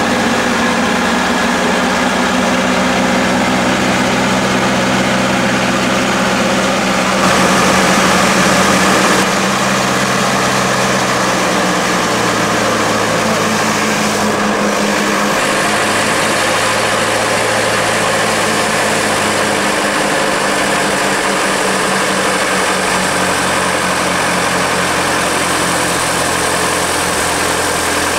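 A crane's engine runs steadily while it hoists a load, its note shifting as the load comes on. About seven seconds in it is louder and harsher for a couple of seconds.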